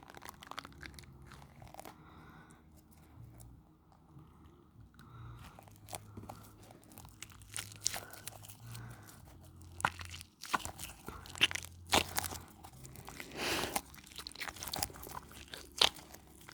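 A dumpling-shaped squishy with a dried outer coating being squeezed and cracked: a string of crisp crackles and crunches, sparse at first, then denser and louder in the second half.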